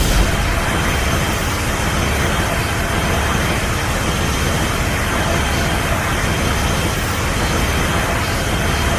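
Steady, loud rushing noise sound effect that fills the whole range from deep rumble to hiss, with a faint high whine running through it.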